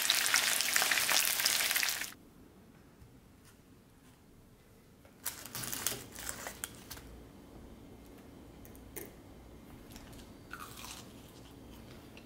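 Crispy chicken karaage crackling loudly for about two seconds, then cutting off sharply. After that only a few faint scattered clicks and knocks are heard.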